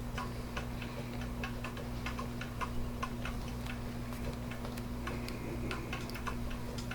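Light clicking and ticking, a few times a second at uneven spacing, as a small plastic spreader works thermal paste across the CPU's metal lid, over a steady low hum.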